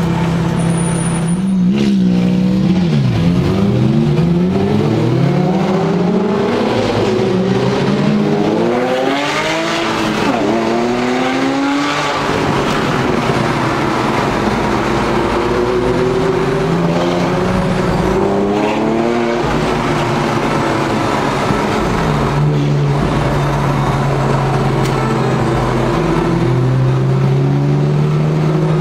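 Porsche 997's flat-six engine heard from inside the cabin: it idles steadily, then about two seconds in accelerates hard through several gears, the revs rising and dropping back at each shift, before easing to a steadier, lower note near the end.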